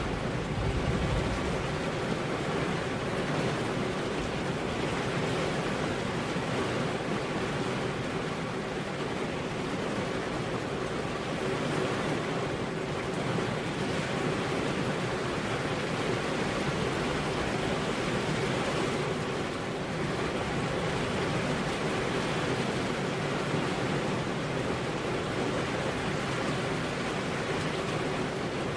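Steady rain, an even hiss with no pauses, with a low rumble dying away in the first second or so.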